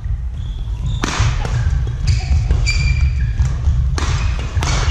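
Badminton play in a sports hall: racket strikes on the shuttlecock, the sharpest about a second in and again about four seconds in, with short high shoe squeaks on the court floor and thudding footfalls.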